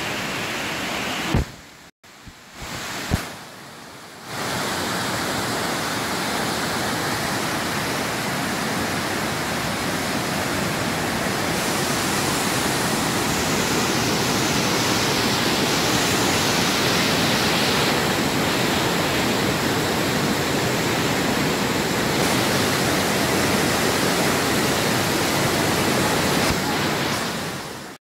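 A large waterfall rushing steadily into a rocky plunge pool, a constant wash of water noise. The sound drops away briefly about two seconds in, then comes back.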